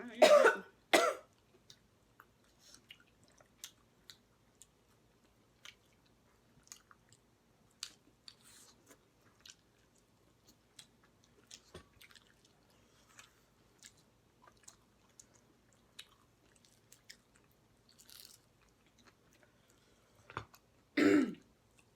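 Close-up chewing and wet lip-smacking from someone eating saucy chicken legs: a stream of small irregular clicks and smacks. A short voiced groan comes right at the start and another near the end.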